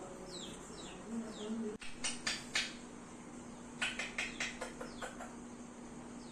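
Birds calling: a thin, quick falling chirp repeated two or three times a second, broken by two bursts of short harsh calls. There are three about two seconds in and a faster run of about seven, fading, near four seconds in. A faint steady low hum runs underneath from about two seconds in.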